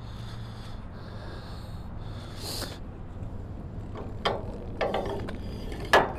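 Steel locking arm of a car carrier's ramp being worked by hand: sharp metal clicks about four seconds in and a louder metal clank near the end, over a steady low hum.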